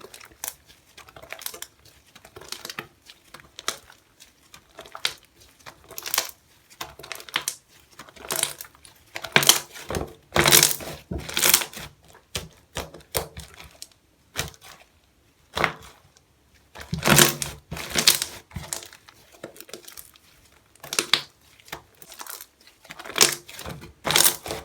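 Slime being squished and worked by hand, giving irregular bursts of clicking and crackling with short pauses between; the loudest bursts come about ten seconds in and again about seventeen seconds in.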